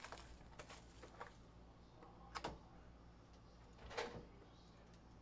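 Faint handling of a trading-card hobby box as it is unwrapped and its lid flipped open: soft rustles and a few light clicks and taps, the loudest about four seconds in.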